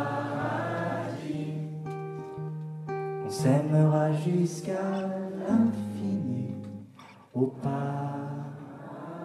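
Acoustic guitar played under a singing voice holding long notes, with a brief break about seven seconds in.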